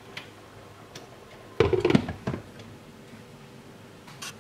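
Glass pot lid with a steel rim set down onto a coated frying pan of simmering bulgur, a short clatter of a few knocks about one and a half seconds in.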